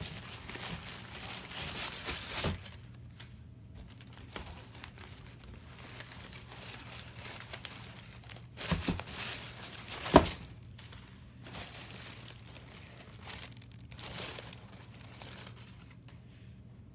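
Tissue paper packing in a shoebox crinkling and rustling as shoes are handled in it. It is loudest for the first couple of seconds, comes back in bursts about nine and fourteen seconds in, and there is a sharp knock about ten seconds in.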